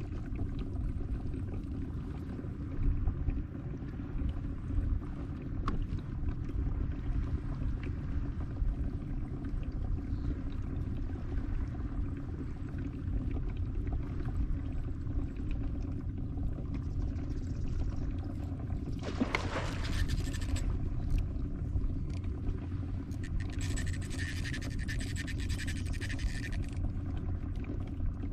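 Steady low rumble of wind and water around a fishing kayak under way on open water. A short hiss comes about two-thirds of the way in, and a longer, higher hiss follows a few seconds later.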